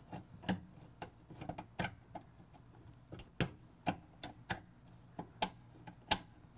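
Screwdriver tightening the ground screw on a dishwasher's metal wiring bracket: a series of short, sharp clicks at uneven spacing, roughly one or two a second.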